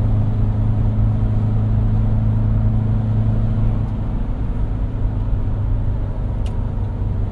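VW T3 van's engine droning steadily with road noise, heard from inside the cab while driving; about four seconds in the drone eases a little.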